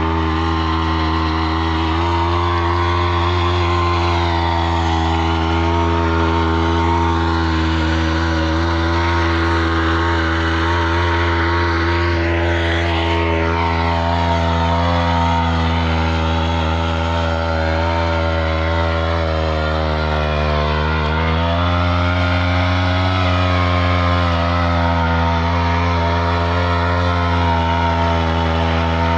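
Minos walk-behind rotary tiller's small air-cooled Campeon engine running steadily under load as its tines churn dry, stony soil. The engine note rises a little about twenty seconds in.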